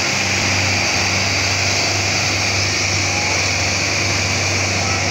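Tractor diesel engine running hard under heavy load, hauling a trailer stacked high with sugarcane: a loud, steady drone with no change in pitch.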